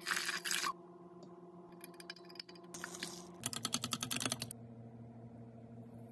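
A fork whisking batter in a stainless steel bowl: a quick run of sharp metal-on-metal clicks, about ten a second, lasting about a second midway through. It follows a brief splashy burst at the start as buttermilk is poured in. A faint steady hum runs underneath.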